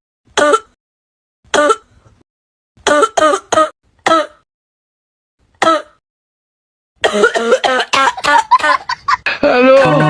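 A man's hacking smoker's cough. It comes as single coughs and short runs of two or three, then a fast string of coughs about seven seconds in, running into a long, drawn-out vocal sound that wavers in pitch near the end.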